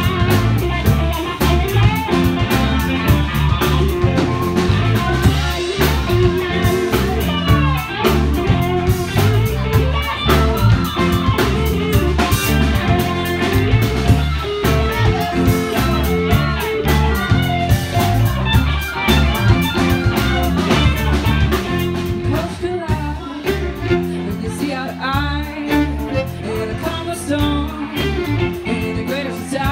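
Live band playing: electric guitars over a drum kit, with a steady beat.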